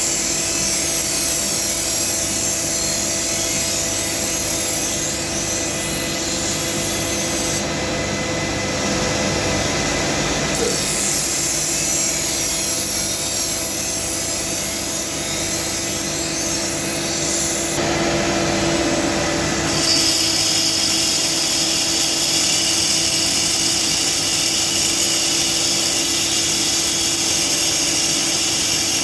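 Sword blade being sharpened on a motor-driven grinder: a steady motor hum under a grinding hiss that shifts in tone several times as the blade's contact changes.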